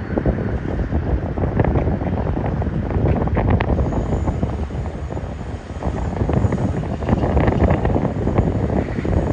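Passing train: a low rumble with rapid, irregular clicking and knocking of wheels on the rails.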